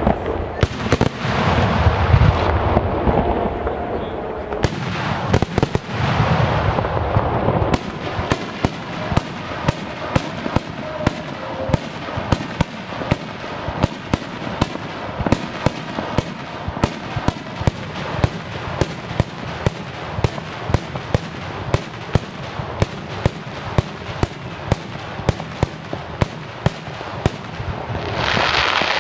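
Daytime aerial fireworks shells bursting overhead. For the first several seconds there is a dense, rumbling barrage of bangs, then a steady run of sharp reports at about two a second, with a louder rushing burst near the end.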